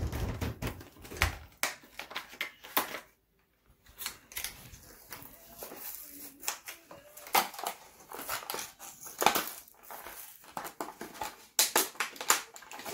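Beyblade Burst toy packaging being handled and torn open by hand: irregular crinkling of plastic and crackling, ripping card. The sound breaks off briefly about three seconds in.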